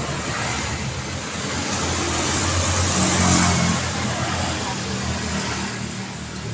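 Road traffic with a motor vehicle passing close by: a steady tyre-and-engine rush that swells to a peak about halfway through and then eases off.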